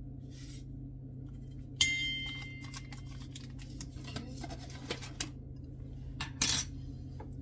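A metal spoon taps a stainless steel mixing bowl about two seconds in, and the bowl rings briefly. A few light clicks and a short rustle of kitchen things being handled follow near the end, over a steady low hum.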